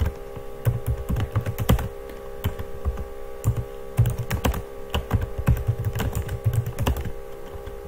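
Typing on a computer keyboard: quick, irregular keystrokes clacking as a line of code is entered, over a faint steady hum.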